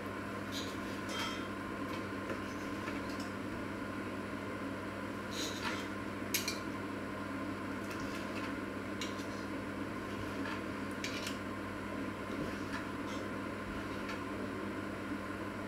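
Knife slicing cooked meat on a wooden cutting board: scattered light taps and clicks of the blade against the board, the sharpest about six seconds in. A steady hum underlies it.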